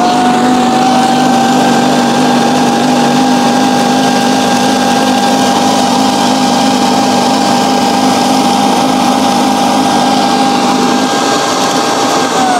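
Shark IQ Self-Empty XL base station's suction motor running its self-emptying cycle, pulling the dirt out of the robot's bin: a loud, steady high whine over rushing air. Right at the end the whine starts to drop in pitch as the motor winds down.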